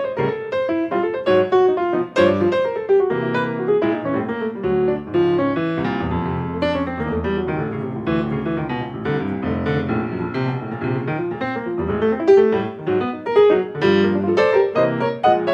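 Background piano music: many quick struck notes, with a calmer, more sustained stretch in the middle.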